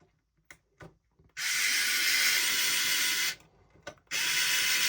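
Small electric screwdriver driving a 20mm screw into a 3D-printed plastic part, running in two steady spells of about two seconds each with a short pause between them. The motor has a faint steady whine.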